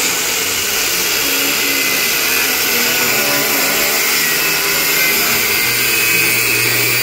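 Corded angle grinder with a thin cut-off disc cutting through a steel car subframe, running steadily under load.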